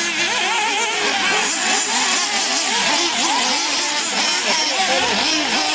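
Several nitro RC buggies' small two-stroke glow engines racing together, each high-pitched whine rising and falling over and over as the throttles are blipped through the corners and jumps.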